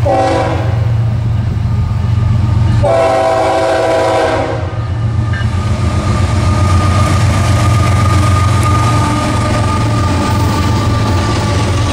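Freight train horn sounding from the approaching lead locomotives: one blast ends just after the start and a second long blast runs from about 3 to 4.5 seconds in. The Florida East Coast GE ES44C4 diesel locomotives then rumble past at close range, with wheels clicking over the rails.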